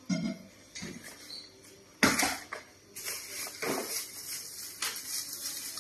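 Kitchenware clattering at a sink: a few sharp knocks of pots and dishes, the loudest about two seconds in. From about three seconds in, a plastic bag crinkles as it is handled.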